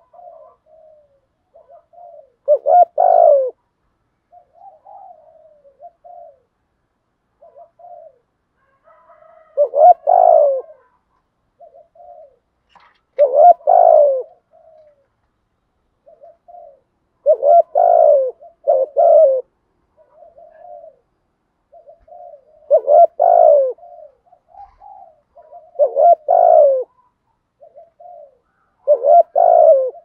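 Spotted dove cooing: about seven loud, low coo phrases of roughly a second each, every three to four seconds, with fainter short coos in between.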